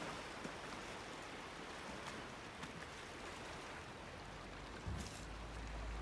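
Steady soft wash of a calm sea lapping over a rocky shore. About five seconds in, a bump on the microphone, followed by a low rumble.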